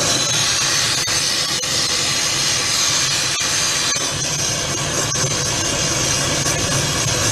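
Gas torch flame burning steadily on brass being melted in a crucible: a continuous hiss and rush.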